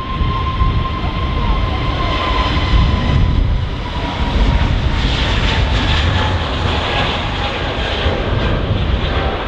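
Airbus A320neo's CFM LEAP-1A jet engines at takeoff power, a steady loud rumble with a high whine that fades after about three seconds.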